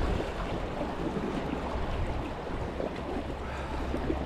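Steady noise of wind on the microphone and sea wash, with a constant low rumble.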